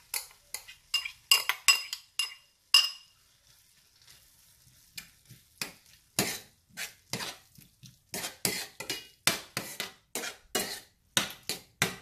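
Metal spoon scraping ground masala paste out of a bowl and knocking against the bowl and the stainless steel pan, with short ringing clinks in the first three seconds. After a brief pause, the spoon stirs the paste into the squid with quick scraping strokes, about two a second.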